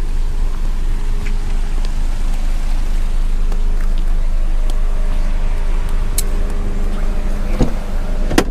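Steady road and engine noise of a van driving, with two sharp knocks near the end.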